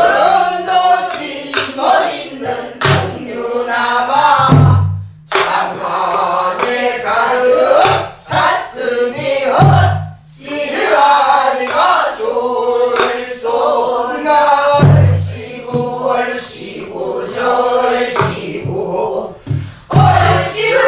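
Korean Namdo folk song sung with heavy vibrato over a buk barrel drum: a deep drum stroke about every five seconds, with lighter strokes between and other voices joining in.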